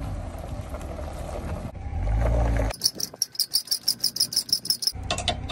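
Low wind rumble on the microphone, then from about the middle a rapid, even, high-pitched chirping of an insect, about nine pulses a second, which stops shortly before the end as the rumble returns.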